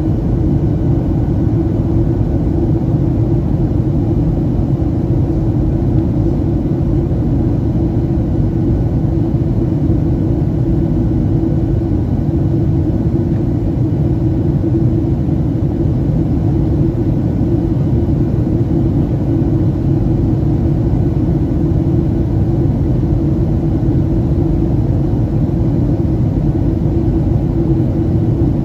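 Steady cabin noise inside a Boeing 737-800 in flight: the low rumble of its CFM56-7B turbofans and the air rushing past the fuselage, even and unchanging.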